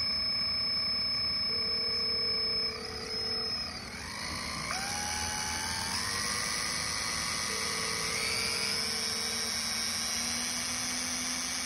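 Electric drill running with a steady motor whine; its speed drops about three seconds in, then climbs back up in a few steps.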